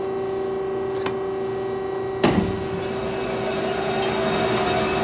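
JMT WL-460DSAR semi-automatic band saw starting its cycle: over the machine's steady hum comes a faint click about a second in, then a sharp clunk just after two seconds. After the clunk the saw's running noise builds slowly.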